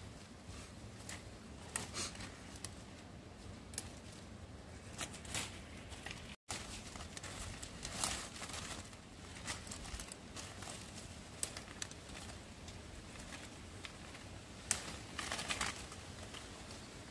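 Irregular rustling and crinkling, as of material being handled, with scattered sharp snaps and clicks. The sound cuts out completely for a moment about six seconds in.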